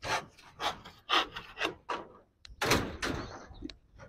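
Rhythmic rasping scrapes, about three a second, then after a short pause a single louder scrape with a few small clicks.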